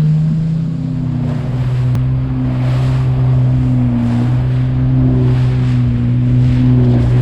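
WaveRunner personal watercraft engine running at a steady pitch that drops slightly about a second in, with intermittent rushing noise over it.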